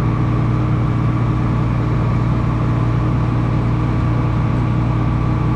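Combine harvester running at a steady speed, an even mechanical hum with a constant pitch.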